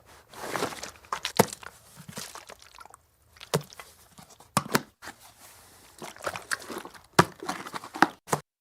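Water sloshing inside a full army-issue plastic canteen as it is shaken in irregular bursts. Several sharp knocks come in between the sloshes, and the sound stops just before the end.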